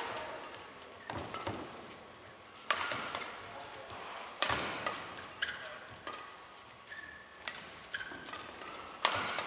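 Badminton rackets striking a shuttlecock in a doubles rally: about six sharp cracks, roughly one every second and a half, each ringing briefly in a large hall. Court shoes squeak briefly between shots.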